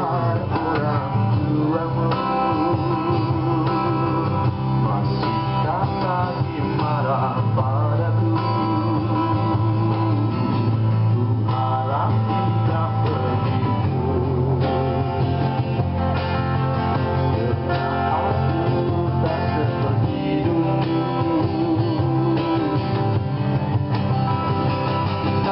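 Live band playing a song, guitars to the fore over a steady bass, with a wavering melody line on top and no words sung.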